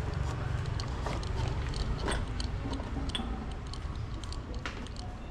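Porcelain teacups being set back into a cardboard gift box: scattered light clinks and taps of china and cardboard handling, the strongest about two seconds in, over a steady low rumble.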